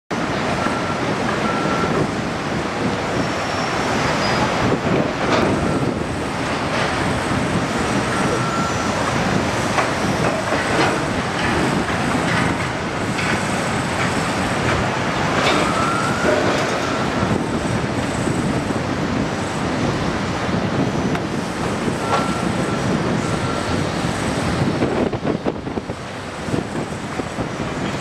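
Cat skid steer working with a grapple among steel and concrete debris: its engine running under a steady din of metal clanking and scraping, with many sharp knocks and a few brief high squeals.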